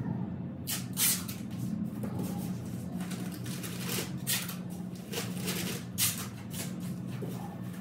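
Thin plastic masking film crinkling and rustling in irregular bursts as it is handled and tucked around a car's bodywork, over a steady low hum.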